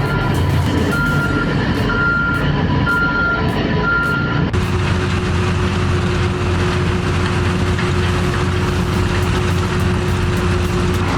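Heavy machinery engine running with a backup alarm beeping about once a second; about four and a half seconds in the sound cuts to another heavy machine engine running steadily with a constant hum.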